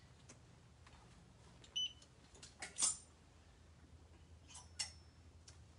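A single short, high electronic beep nearly two seconds in, among a few light clicks and rustles of handling.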